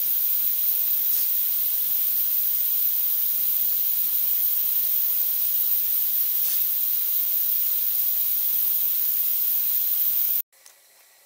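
A steady, loud, high-pitched hiss that cuts off abruptly near the end.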